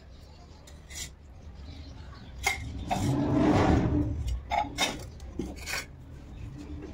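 Steel utensils clinking and scraping on a concrete floor as a steel mug is set down beside a steel plate: a few sharp clinks, and a louder scrape lasting about a second in the middle.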